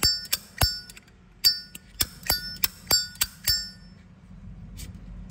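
Zippo lighter lid flicked open and snapped shut over and over: about ten sharp metallic clicks, roughly three a second, each with a short bell-like ring. One fainter click comes near the end.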